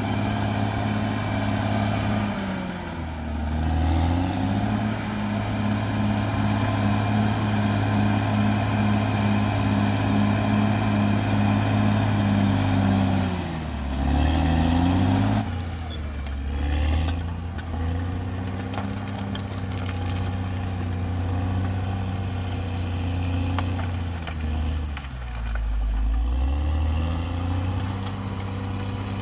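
CAT D6R XL bulldozer's diesel engine running steadily, its pitch sagging and recovering three times.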